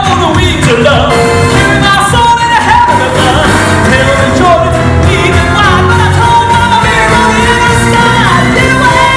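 Southern gospel male vocal quartet singing into microphones over a live band with bass.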